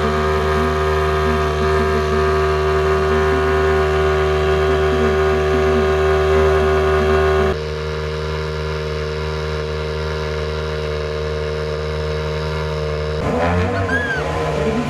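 Rally1 rally cars' turbocharged four-cylinder engines idling steadily, the sound switching abruptly twice between cars. Near the end, a closer and rougher idle with rapid pulsing comes from a Toyota GR Yaris Rally1.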